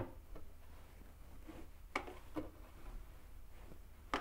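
Quiet room with a low hum, and a few faint clicks and taps of a screwdriver and small part being handled at a sink cabinet, two of them close together about two seconds in.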